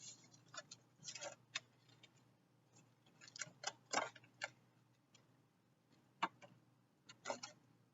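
Irregular light clicks and taps of stiff pinwheel cardstock being handled and its flaps folded toward the centre, with a cluster near the middle.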